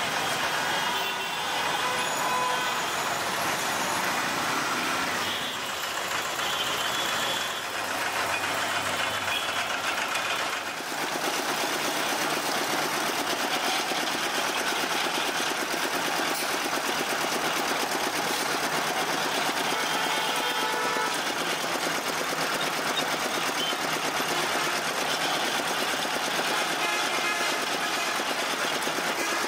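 Street traffic noise for roughly the first ten seconds, then a belt-driven sugarcane juice crusher running with a fast, even mechanical rhythm as its ridged steel rollers crush cane stalks fed by hand.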